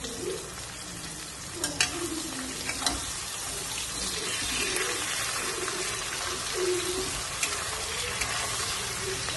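Ilish fish heads and taro frying in hot oil in a kadai: a steady sizzle, stirred with a ladle. A few sharp knocks against the pan come about two to three seconds in.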